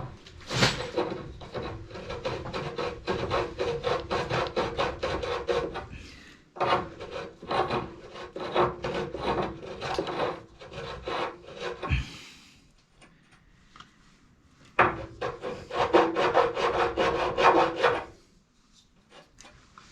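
Hand deburring tool scraping the burr off the cut end of a carbon-steel press pipe, in quick repeated strokes a few a second. It comes in three bouts, with a pause in the middle and another near the end.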